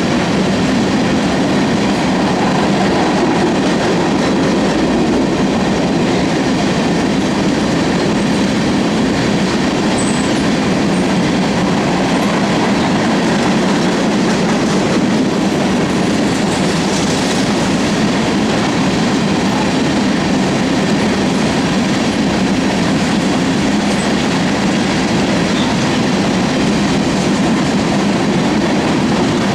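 Freight cars of a sand train rolling past on the rails in a loud, steady rumble and rattle.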